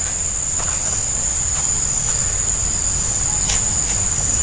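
Steady high-pitched insect chorus droning without a break, with a low rumble underneath and a couple of faint ticks.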